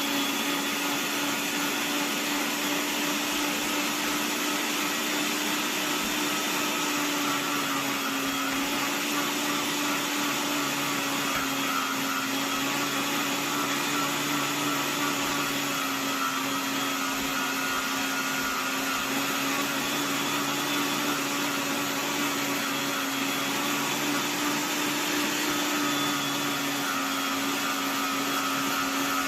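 Paderno electric meat grinder's 400 W motor running steadily, a loud even whir with a constant hum.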